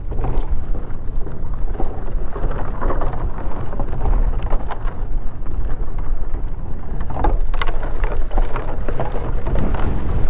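Wind buffeting the microphone: a loud, steady low rumble, with scattered light knocks.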